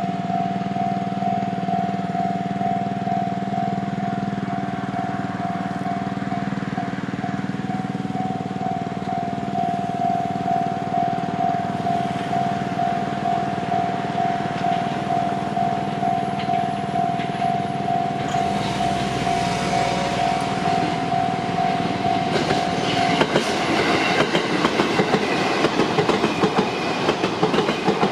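Japanese level-crossing warning bell ringing in a steady, evenly repeating tone. From about two-thirds of the way in, a JR Chuo Line train comes through, its wheels clacking over the rail joints and growing louder near the end.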